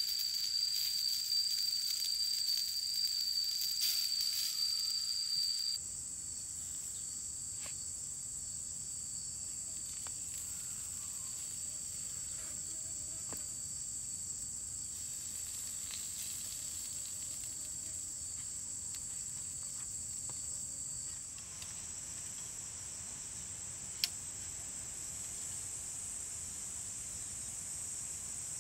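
Steady, shrill high-pitched insect buzzing. One of two high tones cuts off suddenly about six seconds in, and there is a single sharp click near the end.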